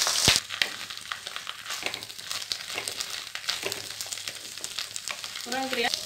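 Moringa leaves sizzling in hot oil in a clay pot. The sizzle is loud for the first half-second, then drops quieter, with the scrape and clicks of a wooden spatula stirring the leaves.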